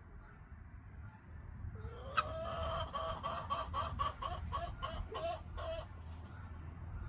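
A backyard chicken clucking: a short rising note about two seconds in, a sharp click, then a rhythmic run of about a dozen clucks over three and a half seconds.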